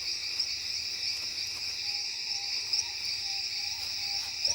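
A steady chorus of rainforest insects: several continuous high-pitched trills overlapping. From about two seconds in, faint short calls repeat at a lower pitch beneath it.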